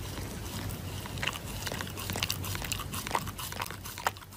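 A dog chewing and pawing at a paper tissue over its muzzle: a run of small crinkling, crunching clicks starting about a second in.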